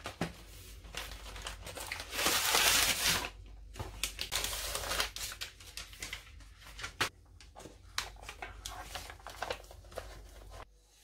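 Crinkling and rustling of the backing paper of a Dr. Oetker ready-rolled fondant sheet as it is pulled from its cardboard box and unrolled on a countertop, with small clicks and a louder rustling rush about two seconds in.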